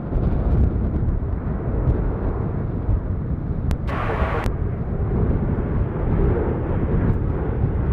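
Jet engines of the Atlas Air Boeing 747-8 Freighter, four GEnx turbofans, rumbling steadily and deeply as the jumbo jet passes. A short burst of hiss cuts in about four seconds in.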